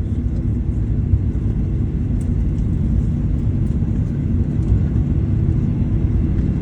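Steady low rumble inside the passenger cabin of a Boeing 737-800 as it rolls along the ground after landing.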